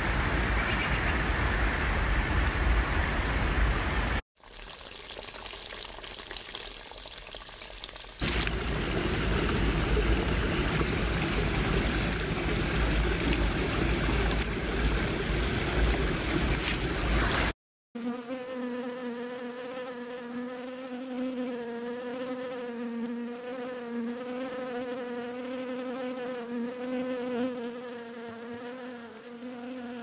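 Steady rushing noise with two sudden cuts, then, a little past halfway, a continuous buzz from a flying insect whose pitch wavers slightly as it hovers.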